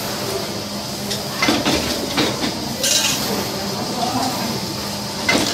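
Small stamped sheet-metal door clamps and a hand press clinking and clanking, with about four sharp metallic knocks over a steady low hum.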